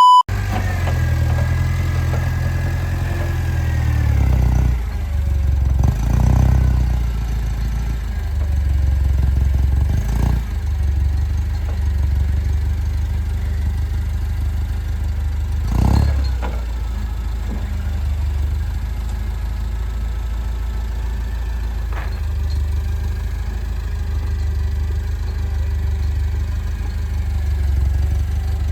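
An engine running at low speed, its pitch stepping up and down now and then, with a few sharp clunks along the way.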